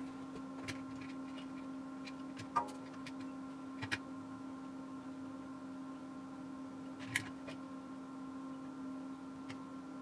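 A steady electrical hum with fainter high whines, and a few light clicks and knocks: one about two and a half seconds in, one near four seconds and one about seven seconds in.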